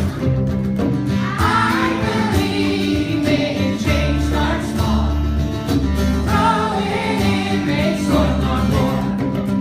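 Music with sung voices, choir-like, over sustained low bass notes.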